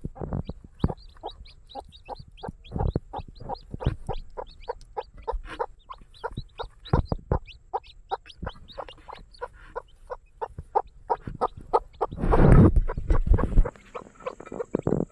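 Desi chickens clucking and calling in quick, short notes, with a run of rapid high calls in the first half. A louder, noisier burst comes about twelve seconds in.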